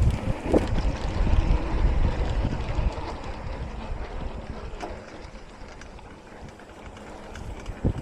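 Wind buffeting the microphone of a camera on a moving mountain bike, mixed with tyre and trail rumble. It is loudest for the first few seconds, then eases off.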